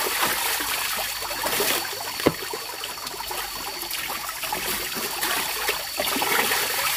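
Water trickling and splashing, with one sharp knock about two seconds in.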